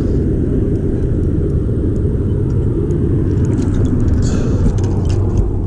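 Steady low rumble, with a brief hiss about four seconds in.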